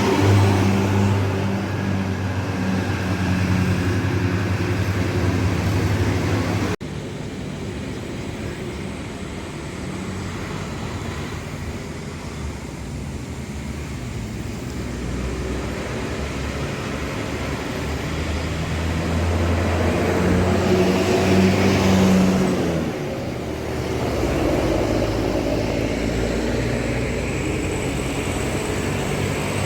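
Engines of buses and other heavy vehicles passing on a road, in cut-together clips. A loud engine drone gives way to quieter traffic at an abrupt cut about seven seconds in. Later another vehicle approaches and passes, loudest a little past twenty seconds.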